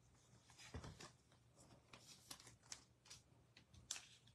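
Near silence with faint handling of trading cards: a few soft flicks and rustles as cards are slid and turned.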